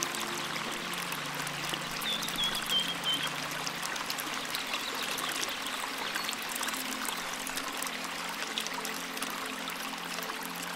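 Small waterfall splashing and pouring steadily, with soft held music tones underneath and a few short high chirps about two seconds in.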